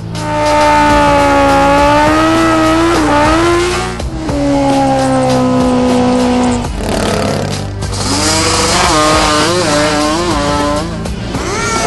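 High-revving motorcycle and quad racing engines, held at high pitch and sliding up and down, wavering rapidly near the end, with background music under them.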